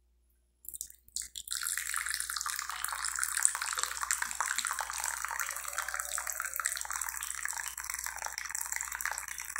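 Black coffee poured from a thermos flask into a glass cup: a few clicks about a second in, then a steady stream of liquid splashing into the cup that stops suddenly near the end.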